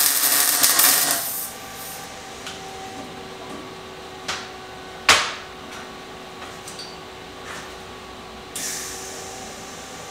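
MIG welder laying a short practice bead on a scrap steel tube: the arc crackles loudly for about a second and a half, then stops, leaving the welder's steady hum. Two sharp clicks follow about four and five seconds in, and a softer hissing stretch starts near the end. The practice weld is to check the welder settings, and it starts roughly.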